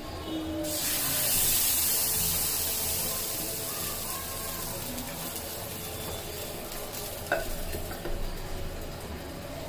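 Thin rice-flour batter hitting a very hot cast-iron kadai and sizzling, starting suddenly about a second in and slowly dying down as the batter sets. Near the end there is a metal clank as the aluminium lid goes on.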